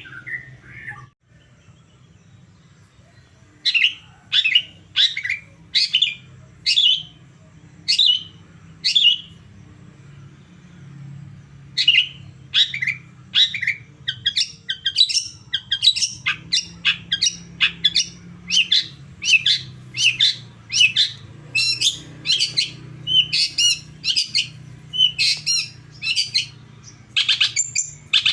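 Long-tailed shrike (cendet) giving short, sharp, harsh calls in series: first a spaced-out run, then after a pause a quicker, longer run of about two calls a second.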